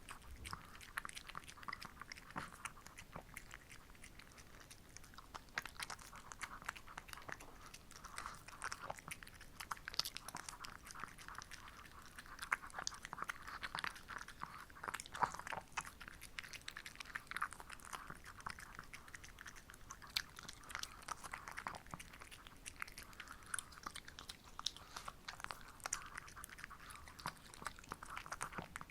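Shih Tzu chewing and crunching a homemade treat: a dense, continuous run of small crunching clicks, picked up close.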